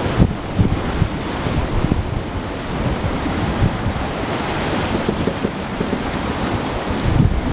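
River rapids rushing and churning, with wind buffeting the microphone in uneven low rumbles.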